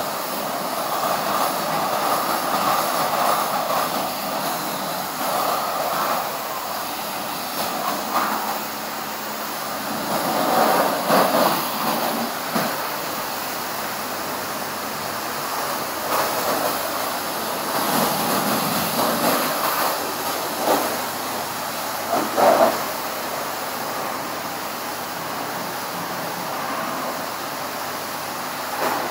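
High-pressure washer wand spraying water onto a car's body at a self-service car wash: a steady hissing spray that swells louder several times.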